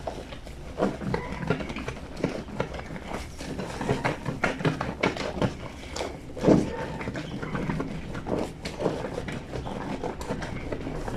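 Wet fleece sheet being scrubbed by hand against a granite washboard: a run of irregular soft knocks and wet rubs, with one louder thump a little past the middle.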